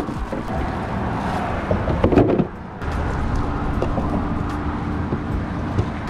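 Road traffic on the bridge: a steady low rumble of passing vehicles, with one vehicle's hum that begins to drop in pitch near the end as it goes by.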